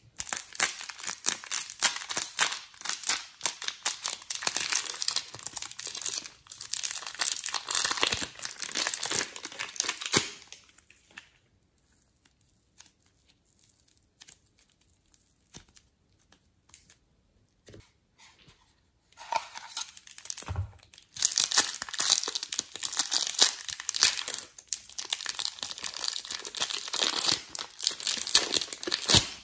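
Thin plastic packaging crinkling and tearing as a packet of modelling clay is opened and the clay squeezed out, for about ten seconds. Then a quiet stretch with a few soft clicks, and for the last ten seconds or so a clear plastic bag crinkling as it is handled.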